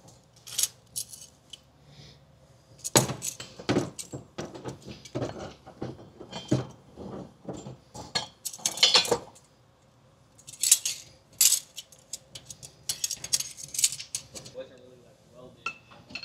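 Irregular metallic clinks and rattles from metal parts and hand tools being handled in a car's engine bay, in clusters with pauses between them.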